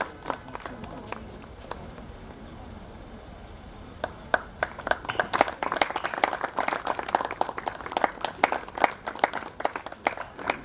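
Audience clapping. It thins out after the first moment, then picks up again about four seconds in and keeps going until near the end.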